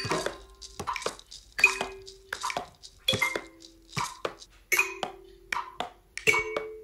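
Hand percussion tapped out without a tune: a slow, uneven string of knocks and taps from a plastic cup and wooden spoons, about two a second, many with a short ringing note after the strike.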